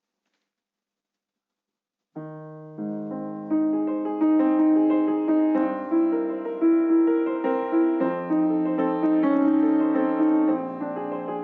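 Solo piano music starting about two seconds in after total silence: a slow melody of separate held notes over sustained bass notes.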